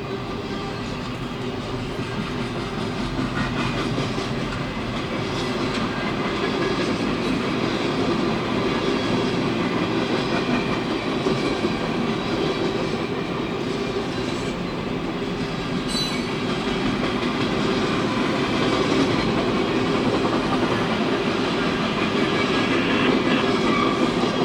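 Train cars rolling past on the rails: a steady rumble of wheels with clickety-clack over the rail joints, slowly growing louder. A brief high wheel squeal comes about two-thirds of the way through.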